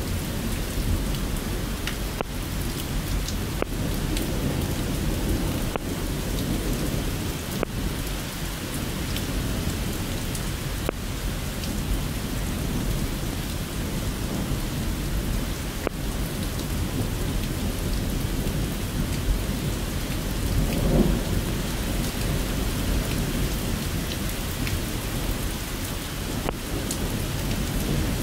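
Thunderstorm: steady rain with low rumbling thunder and scattered sharp drips, and a louder rumble about three-quarters of the way through.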